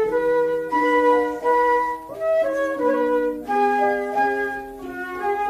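Instrumental interlude of a children's song: a flute-like melody played over accompaniment, no singing.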